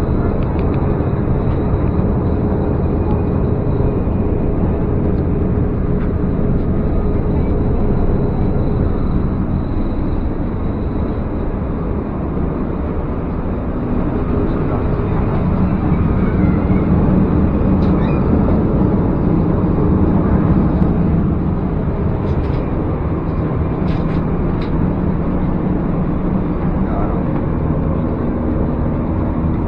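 Steady engine and road rumble inside a moving bus, with a few faint clicks and rattles.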